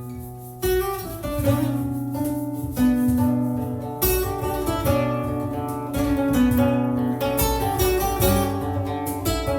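Instrumental music, an improvised piece of plucked and strummed strings, with a new chord or phrase struck about every second.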